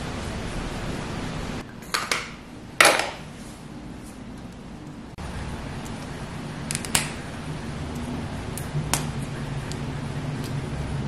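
Small sharp clicks and taps of a makeup pencil and other small cosmetic items being handled, the loudest two close together a few seconds in, over a steady background hiss.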